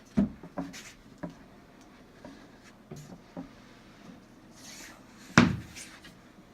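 Knocks and clunks of a wooden cabinet section of a bathroom space saver being flipped over and handled, with one heavy thump about five seconds in.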